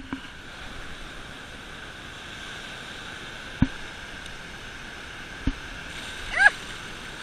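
Steady rushing of ocean surf with wind. Two short low thumps come midway, and a brief high squealing call rises and falls near the end.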